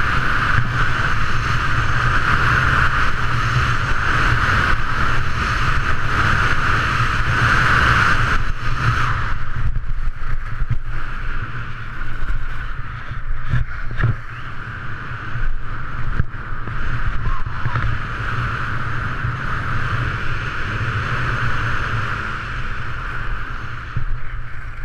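Wind rushing over an action camera's microphone with skis hissing and scraping over packed snow during a downhill run; the rush eases somewhat after about nine seconds.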